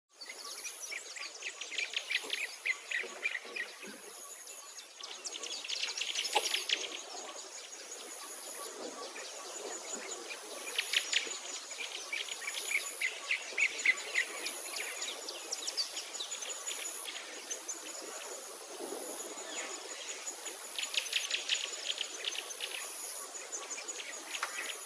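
Outdoor birdsong, in clusters of quick chirps and trills every few seconds, over a thin, high-pitched insect buzz that repeats in short pulses about once a second.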